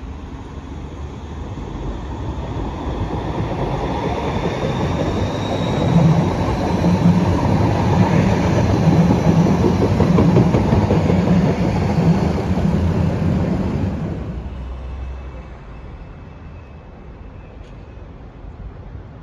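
A Siemens Combino low-floor light-rail train passes close by, its wheels rumbling and clacking over the rails, with a faint high wheel squeal about four seconds in. The noise builds, is loudest in the middle, and drops away quite quickly about 14 seconds in as the train runs down into the tunnel.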